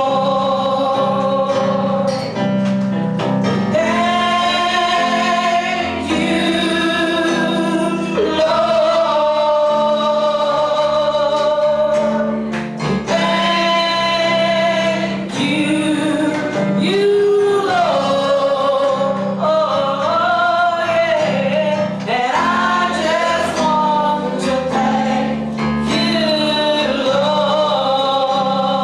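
Gospel singing: voices of men and women singing a praise and worship song over a steady instrumental accompaniment.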